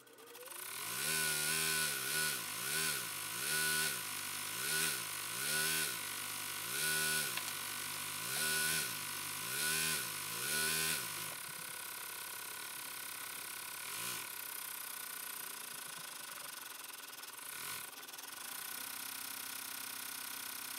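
Baby Lock Enterprise ten-needle embroidery machine starting up and stitching satin-stitch lettering. Its running sound rises and falls in pitch about once a second for the first ten seconds or so, then settles into a steadier, slightly quieter run.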